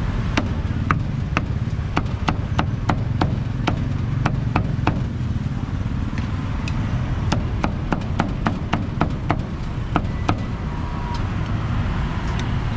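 A cleaver chopping cooked meat on a chopping block: a run of sharp, irregular chops, two or three a second, with a pause of a second or two midway, over a steady low rumble.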